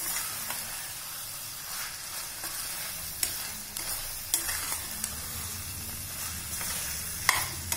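Chicken masala sizzling in an aluminium pressure cooker as it is cooked down to reduce the gravy, stirred with a metal ladle that scrapes along the pot and knocks against it a few times.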